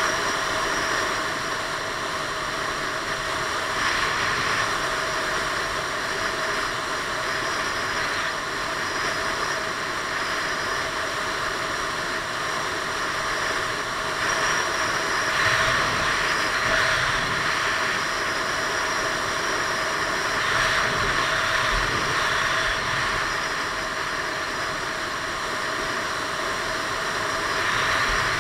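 Piaggio Beverly 500 scooter cruising at a steady road speed: a constant rush of wind over a helmet-mounted camera mixed with the single-cylinder engine's drone.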